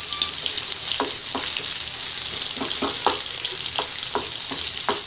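Freshly added chopped onion and green chilli sizzling in hot oil in a kadai, just beginning to sauté. A wooden spatula stirs them, knocking and scraping against the pan about ten times.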